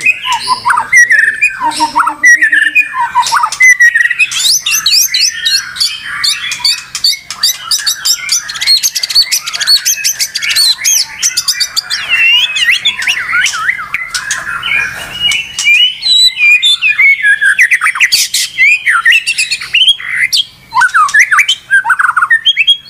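White-rumped shama (murai batu) singing loudly and without a break, in the excited song of a provoked bird. The song is a varied stream of whistles and chirps, with a long run of very fast high trills through the middle.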